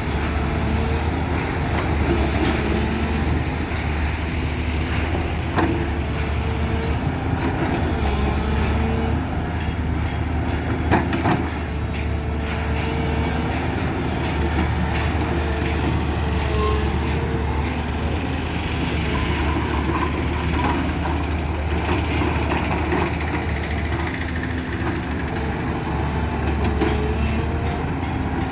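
Heavy diesel engine of earth-moving machinery or a truck running steadily under load, its pitch rising and falling, with a few metallic knocks, the loudest about 11 seconds in.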